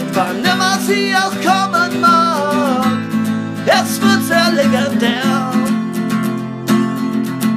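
Song with a strummed acoustic guitar and a singing voice over it; the voice stops a little over two-thirds of the way through, leaving the guitar strumming alone.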